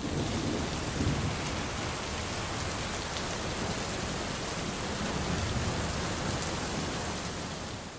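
Steady hiss of rain on a wet road, with a low rumble underneath that swells about a second in and again past the middle, fading away near the end.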